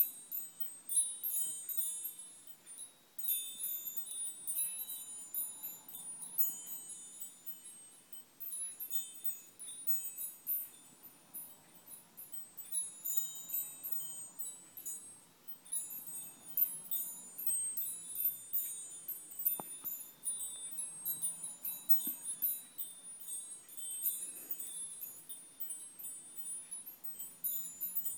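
Small hand-held metal tube wind chime swinging, its tubes struck again and again in irregular clusters of high, ringing tinkles.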